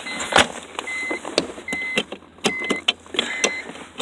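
Car's warning chime: a short, high, steady beep repeating about once every 0.8 seconds, mixed with sharp clicks and knocks from handling in the car.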